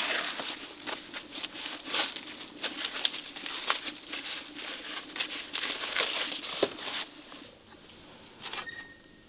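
Dry corn husks being pulled and torn off ears of corn by hand: a crackling, crinkling rustle with sharp tearing snaps. It stops about seven seconds in, leaving only faint small sounds.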